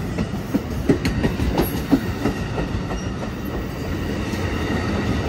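Amtrak San Joaquin train's bilevel passenger cars rolling past the platform: a steady low rumble of wheels on rail, with irregular sharp clicks as the wheels cross rail joints.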